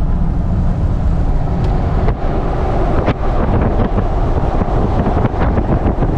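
Road and wind noise from a Jeep Gladiator cruising at highway speed, a steady low rumble. From about two seconds in, wind buffets the microphone in irregular gusts.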